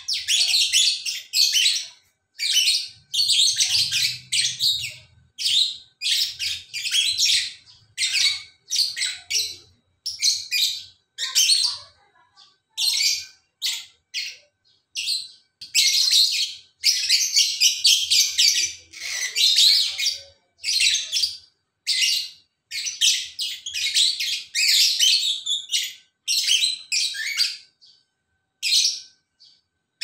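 Caged lovebirds chattering in rapid, high-pitched bouts of chirps, each run lasting up to a few seconds, with short pauses between them.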